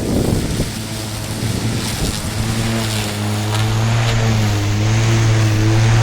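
Milwaukee battery-powered lawn mower's electric motor running with a steady hum, choppier at first as it works through grass, then settling into an even, louder hum from about two seconds in.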